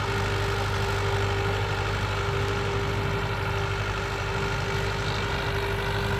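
Old Mahindra 575 DI tractor's four-cylinder diesel engine running steadily at an even speed, with a steady tone over the engine note. The owner blames the tractor's loud noise on a gearbox problem, not the engine.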